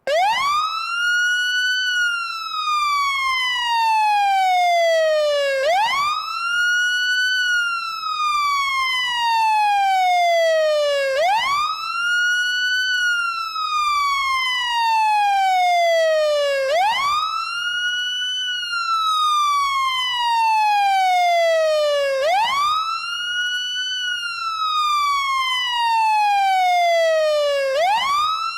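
Fire truck siren sounding a loud, continuous wail. Each cycle rises quickly, then falls slowly, repeating about every five and a half seconds.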